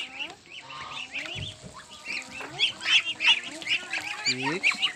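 A flock of domestic ducks calling, many short high-pitched calls overlapping without a break.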